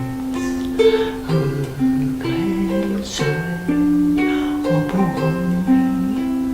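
Instrumental music on plucked string instruments: a tune over a moving bass line.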